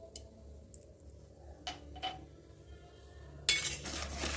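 A few light metallic clinks against a steel mixing bowl. About three and a half seconds in, a wire whisk starts beating cake batter fast in the bowl, a loud, continuous whisking noise.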